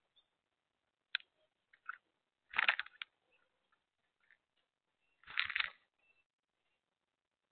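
Doves pecking birdseed from a plastic tray on a wooden feeder: a couple of single clicks, then two short bursts of rapid clicking and rattling seed, about three seconds apart.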